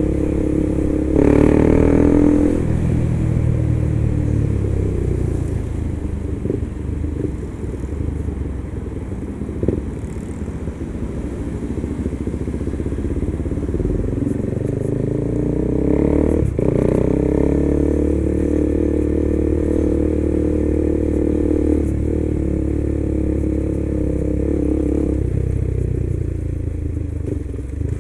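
KTM 390 motorcycle's single-cylinder engine under way. The revs climb briefly about a second in, then ease off and run lower. They climb again about halfway through, hold steady, and fall back near the end.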